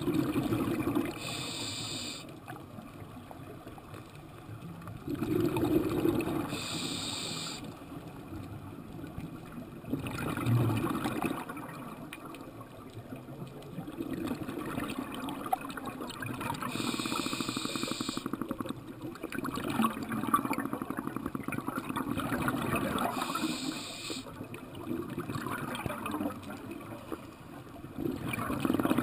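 Scuba diver breathing through a regulator underwater: four short hissing inhales, with bubbly exhales between them.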